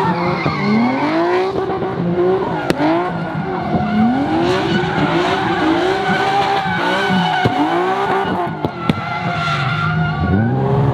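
A car doing donuts: its engine revving up and falling back over and over, about once a second, with the tyres squealing and skidding on the pavement.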